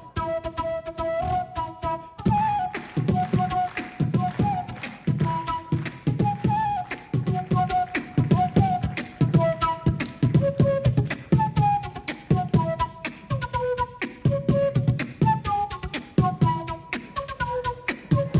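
Background music: a single-line melody over a steady percussive beat that comes in about two seconds in.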